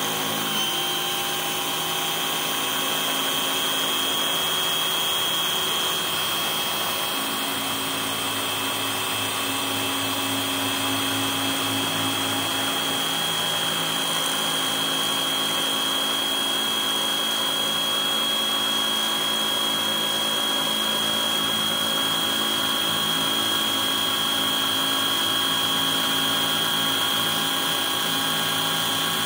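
Spindle of a 1310 CNC engraver running with a steady high whine while a small end mill dry-cuts a brass plate.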